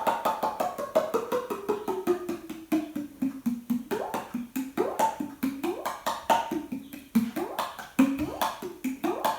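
Metal lid of a water-filled mason jar tapped rapidly as a water drum, about five or six strokes a second. Its ringing pitch glides down over the first few seconds as the jar is tilted and the water touches the lid, then swoops up and back down several times.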